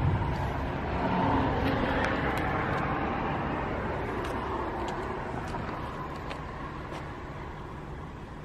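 A vehicle engine running steadily somewhere, with a broader swell of vehicle noise starting about a second in and slowly fading, and a few faint clicks.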